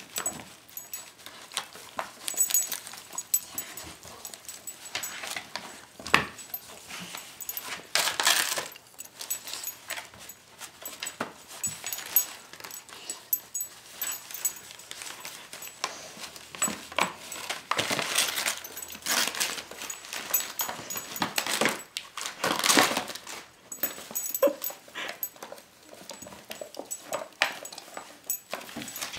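Wrapping paper rustling and tearing, and a plastic wrapper crinkling, as a dog paws and chews at a wrapped pack of dog chews. The noise comes on and off irregularly.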